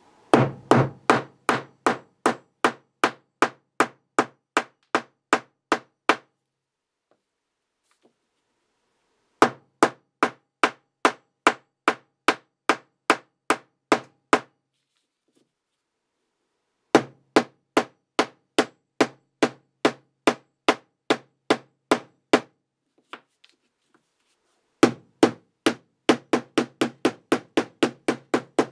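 Pliers with tape-padded jaws working at the glued plastic case of a lithium-ion camcorder battery pack to break its glue seam, making sharp, evenly spaced knocks about three a second. The knocks come in four runs of several seconds, with pauses of about three seconds between them.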